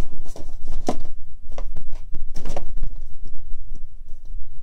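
Plastic Blu-ray cases being handled and shifted, with several short clicks and knocks over a steady low rumble.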